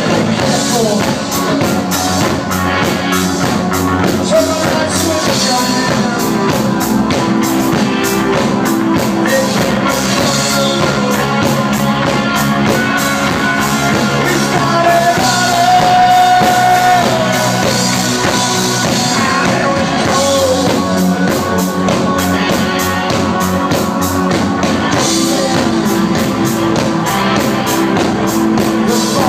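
Rock band playing live: electric guitars and drums, with a man singing at times.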